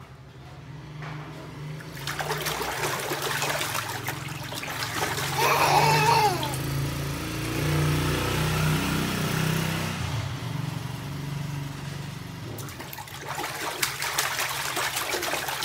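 Water splashing and sloshing in a plastic baby bathtub as a toddler slaps and kicks in it, with a short falling squeal from the child about six seconds in.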